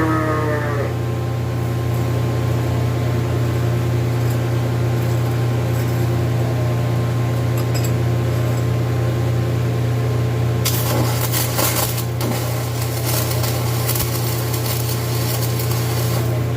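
Arc welder humming steadily. About eleven seconds in, the rapid crackle of a hardfacing stick rod's arc joins the hum.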